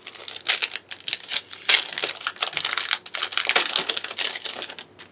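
Foil Yu-Gi-Oh! booster pack wrapper crinkling and crackling as it is handled and opened: a dense run of rapid crackles that stops just before the end.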